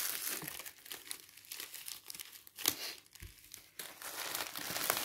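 Plastic wrapping and packing material crinkling as they are handled, in irregular bursts with a few sharp crackles and short quieter spells.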